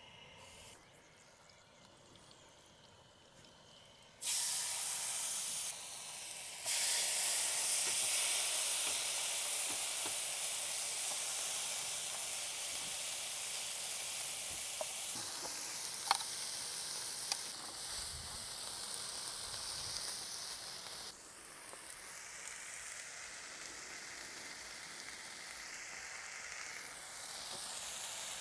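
Food frying in a pan: a steady sizzle that starts suddenly about four seconds in after a quiet stretch, changes level abruptly a few times, and carries a couple of faint clicks partway through.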